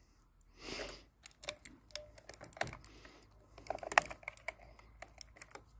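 Scattered sharp plastic clicks and rattles from the Dierya DK63 mechanical keyboard as its spacebar keycap is worked off its switch and stabilizers, with a bunch of clicks about four seconds in. A short soft rustle comes about half a second in.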